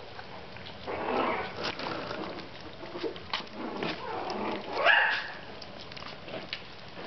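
Young puppies yipping and whining in short high calls, with one louder yelp that rises in pitch about five seconds in.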